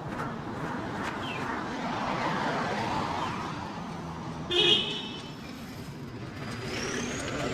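Street traffic with one short vehicle horn honk about two-thirds of the way through.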